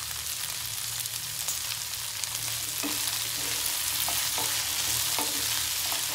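Mixed vegetables sizzling in hot oil in a kadai as a spatula stirs them. From about three seconds in there is a run of short scrapes and knocks of the spatula against the pan.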